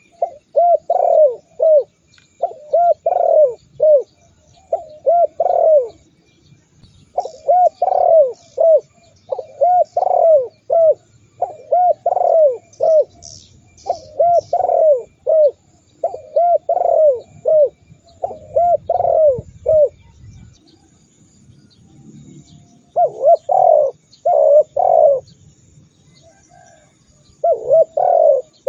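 Spotted dove (tekukur) cooing over and over in phrases of three or four rising-and-falling coos, with a break of a few seconds about two thirds of the way through. Faint high chirps of small birds sound behind it.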